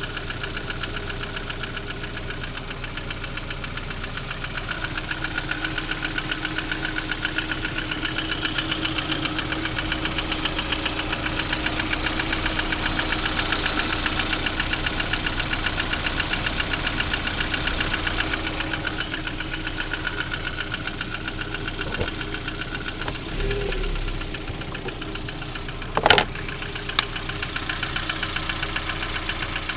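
Lada Priora's four-cylinder petrol engine running with a fast, even knock, the engine knock being shown as a fault. It gets a little louder for a stretch in the middle, and two sharp clicks come near the end.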